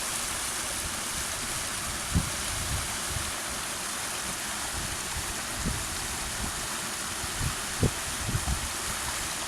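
Waterfall rushing, a steady even hiss of falling water, with a few short low thumps about two seconds in and near the end.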